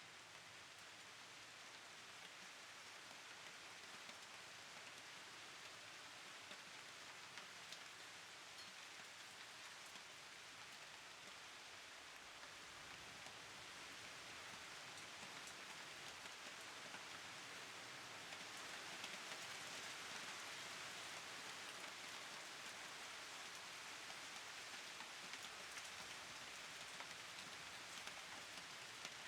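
Faint steady rain, a dense even patter of drops, growing a little louder past the middle.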